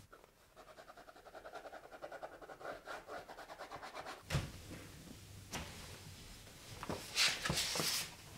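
Sheets of paper handled and rustled, loudest near the end. Before that, a faint rapid pulsing sound with a steady pitch through the first half, then a single thump about four seconds in.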